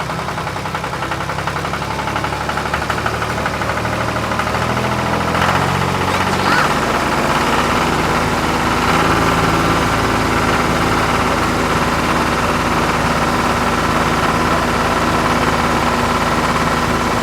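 Engine sound effect of a cartoon construction vehicle running steadily, growing louder over the first several seconds and then holding level.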